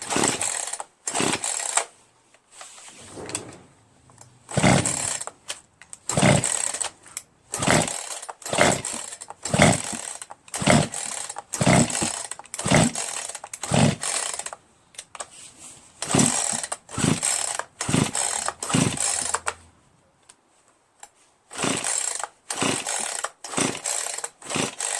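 Poulan Pro PR4218 two-stroke chainsaw being pull-started over and over, the recoil starter rope ripping out in quick strokes about one to two a second, with two short pauses. The engine cranks without catching, which the owner puts down to no compression from a scored piston, rings and cylinder wall.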